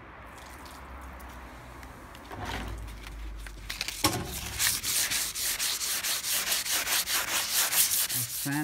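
Hand wet-sanding of an epoxy-coated Folkboat rudder with waterproof sandpaper and water. The rub is soft at first; from about four seconds in come quick back-and-forth scrubbing strokes, several a second, growing louder. It is the epoxy protection coat being sanded smooth before the last coats of epoxy primer.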